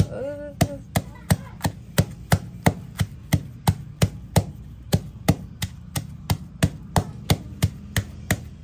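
Rapid, even chopping or knocking strikes, about three a second, over a steady low hum.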